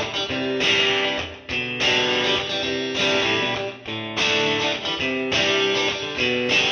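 Background music led by strummed guitar chords, changing roughly once a second.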